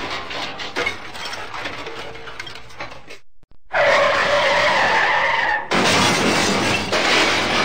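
Car skid and crash: debris settling for a few seconds, a brief silence, then tyres screeching for about two seconds, ending in a crash with shattering glass and scattering debris.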